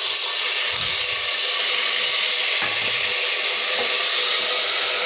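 Ginger paste frying in hot mustard oil with whole spices, sizzling loudly and steadily as it is stirred with a wooden spatula.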